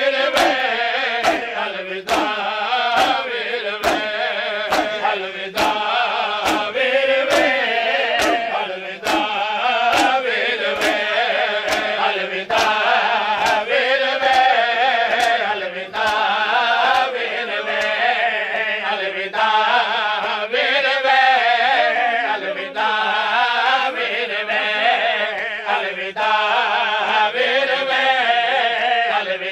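Men's voices chanting a Shia mourning lament (noha), with sharp slaps of open hands striking chests (matam) keeping time about twice a second. The slaps grow fainter and less regular about halfway through.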